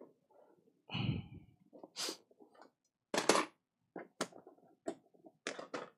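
Small hard objects being handled and set down on a hobby desk while someone rummages for a miniature base: a dull thump about a second in, a loud clatter a little after three seconds, then a run of sharp clicks.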